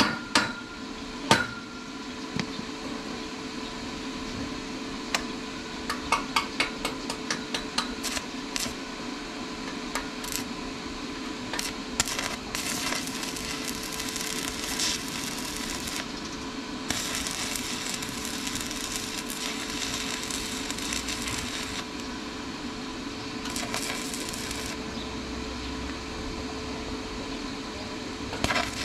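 Stick (arc) welding a bracket onto a galvanized steel pole: sharp taps and clicks near the start and again several seconds in as the arc is struck, then the arc hissing in long stretches that stop and restart, over a steady hum.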